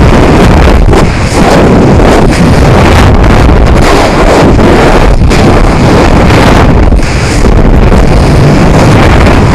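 Loud, steady wind rush buffeting the microphone of an onboard Mobius camera on a high-power rocket sustainer as it falls under an 18-inch drogue parachute, at roughly 100 feet per second. The noise has a few brief dips.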